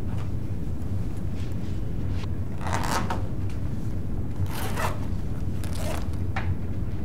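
A backpack handled at floor level: three short rustling scrapes of fabric and bag, about three seconds in, near five seconds and near six seconds, over a steady low room hum.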